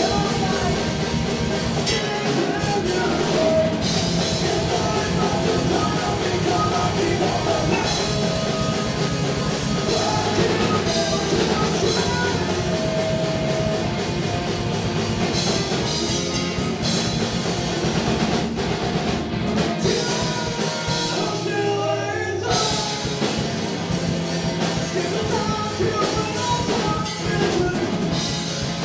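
Punk-rock band playing live: distorted electric guitars, bass and a drum kit, with a singer's voice. The low end drops out briefly about two-thirds of the way through.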